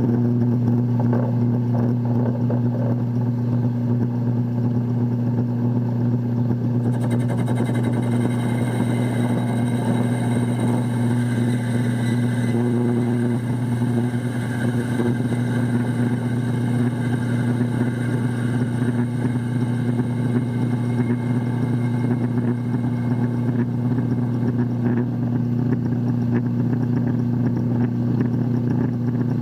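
A 1936 Craftsman metal lathe running with a loud, steady low hum. About seven seconds in, a fainter high whine joins as the tool faces off steel stock.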